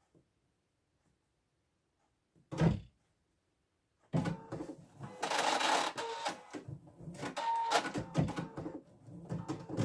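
A single knock about two and a half seconds in, then from about four seconds a Husqvarna Viking Designer Diamond embroidery machine starts up and stitches in an uneven mechanical rhythm as its needle and embroidery arm begin the next part of the design.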